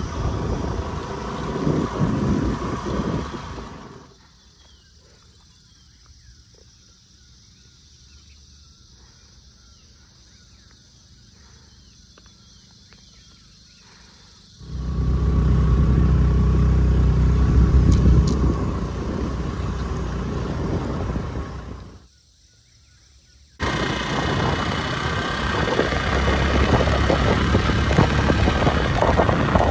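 Waterfall, a steady rush of falling water with a deep low rumble. About four seconds in it drops abruptly to a faint hiss for some ten seconds, then comes back loud. It cuts out again briefly about three-quarters of the way through.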